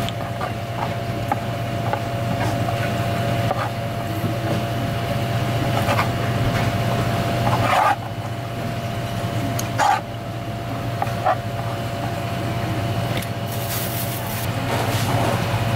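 Steady machine hum with a faint steady tone above it, and a handful of soft knocks as pieces of raw conch meat are handled on a plastic cutting board.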